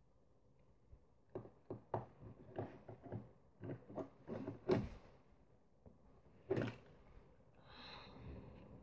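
Fingernails picking and scratching at a roll of sticky tape that has not been started, hunting for its loose end: a quick run of sharp clicks and scrapes, one louder click a little later, and a short soft rasp near the end.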